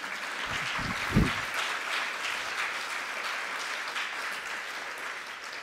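Audience applauding, the clapping dying away near the end, with a brief low sound about a second in.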